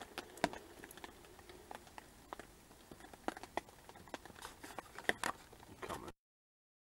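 Sparse, irregular light taps and clicks over a faint hiss. The sound cuts out to dead silence about six seconds in.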